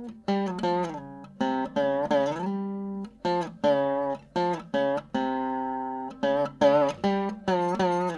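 Background music: a melody picked on a plucked string instrument, like a guitar, its notes struck one after another in quick groups and dying away, some of them bending in pitch.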